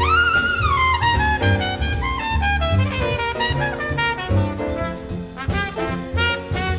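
Jazz trumpet solo over a big band's rhythm section: the trumpet slides up into a high held note at the start, bends it down after about a second, then runs down through a string of shorter notes over a steady bass line.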